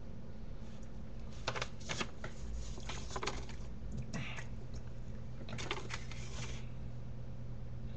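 Scattered rustles and soft taps from a paper mailing envelope being handled and hands moving, in a few clusters, over a steady low electrical hum.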